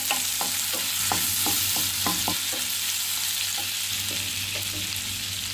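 Garlic paste and green chilli sizzling in butter in a pan, being sautéed until the raw garlic smell goes. A spatula stirs and scrapes the pan about two or three strokes a second, with fewer strokes near the end.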